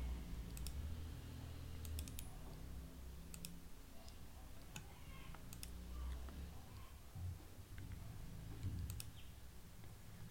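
Sparse computer mouse clicks, several in quick pairs like double-clicks, over a faint low hum.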